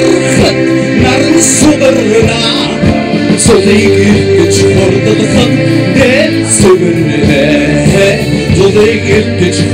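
Live rock band playing loudly, with a man singing lead over electric bass, drums, electric guitar and keyboard.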